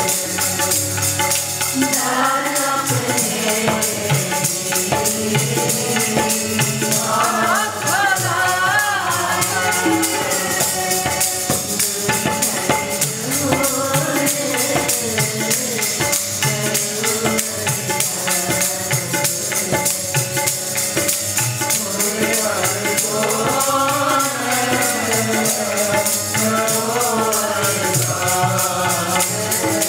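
Sikh kirtan: harmonium and tabla with a steady jingling rattle of hand-held clappers (kartal) and shakers, and a woman singing over it, her sung lines rising clearly about a quarter of the way in and again near the end.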